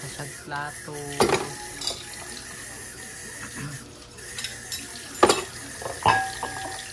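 Tap water running into a kitchen sink while dishes are washed, with several clinks and clatters of crockery and utensils; the loudest comes a little after five seconds in, and one about six seconds in rings briefly.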